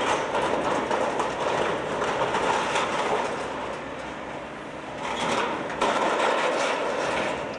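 Sheet metal crashing, scraping and clattering as a Volvo tracked excavator's grapple tears roofing off a shed. Loud at first, easing off midway, then loud again from about five seconds in.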